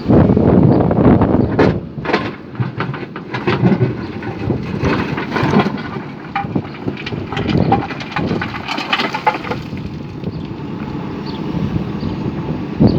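JCB excavator working, with wind buffeting the microphone in a low rumble and a run of sharp knocks and clatters for most of the first ten seconds.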